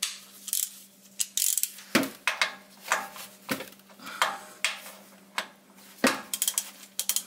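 Irregular metal clinks and knocks of a wrench being handled and worked on the drain plug of a Toyota Tundra's rear differential, as the plug is loosened to drain the gear oil. Heavier knocks come about two, three and a half and six seconds in.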